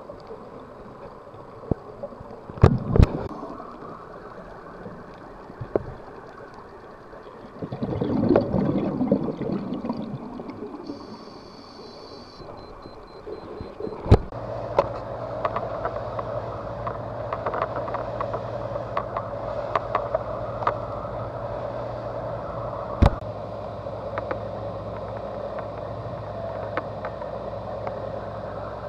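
Underwater sound of a scuba dive: scattered clicks and knocks and a surge of bubbling about a third of the way in. From about halfway a steady low engine hum takes over and holds, as of a boat's motor running.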